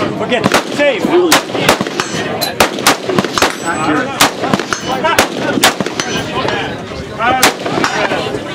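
Gunshots at uneven intervals, a dozen or more, from several guns firing along a busy range line, among them an FN DMR scoped rifle. Voices chatter underneath.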